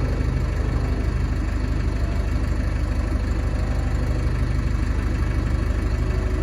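Engine of a large lifting machine running steadily at idle, a constant low pulsing throb.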